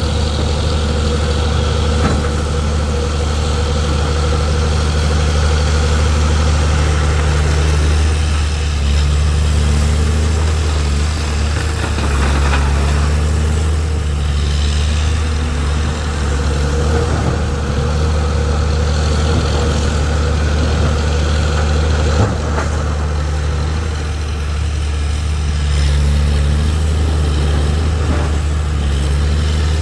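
Heavy diesel engine of earthmoving machinery running steadily at a low, even pitch, with a single sharp knock about three-quarters of the way through.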